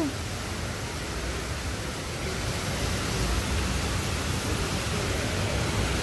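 Rain falling steadily, a continuous even hiss.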